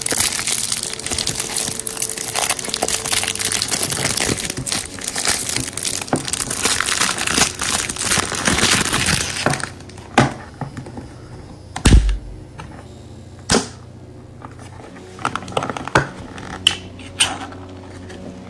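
A cardboard sleeve crinkling and tearing for about ten seconds as a tin of boneless sardine fillets is pulled out of it. Then come a few sharp metal clicks and pops, the loudest partway through, and smaller ticks near the end as the ring-pull lid is cracked and peeled back.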